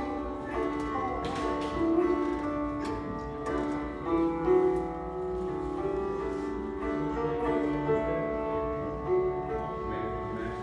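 Sitar played solo at a sound check: plucked notes with sliding pitch bends, over the steady ringing of its sympathetic strings.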